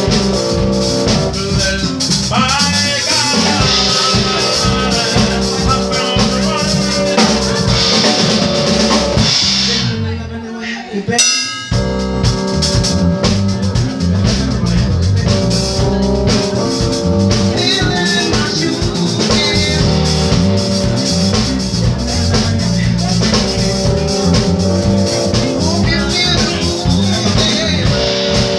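Live music: an electric keyboard playing sustained chords, accompanied by drums and a shaker. The music drops out briefly near the middle, then comes back in.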